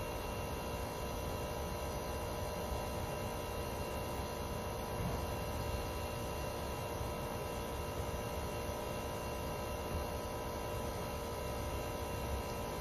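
Steady machine hum with a low rumble beneath it, even and unchanging throughout.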